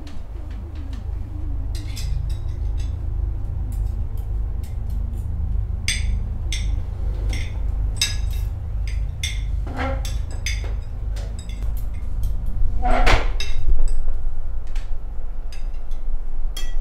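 Forks and spoons clinking and tapping against dinner plates in a string of short, sharp clicks, over a steady deep drone; a louder clatter about thirteen seconds in.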